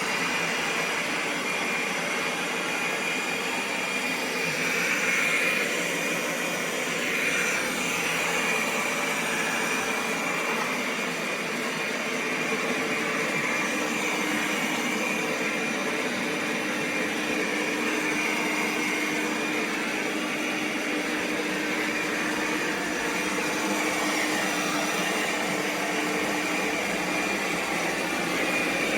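FIXR T20 Plus robot vacuum and mop running, a steady motor and suction noise with a constant high whine. A lower steady hum joins about halfway through.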